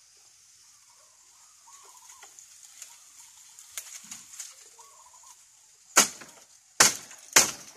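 Dry bamboo twigs and branches cracking and snapping as they are broken off by hand: three sharp cracks in the last two seconds. Before the cracks there are only faint bird calls over a steady high hiss.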